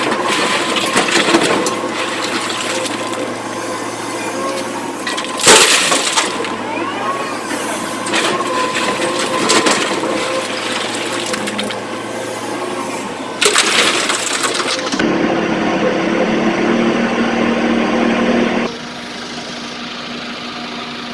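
Excavator working with its engine running while rock and stone crash into a tipper truck's steel body during loading. The loudest crashes come about five and a half seconds in and again about thirteen seconds in.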